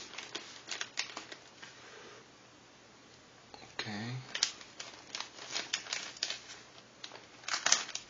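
Plastic courier mailer crinkling and being snipped open with scissors: a run of sharp crackles and snips, with a quieter pause partway through.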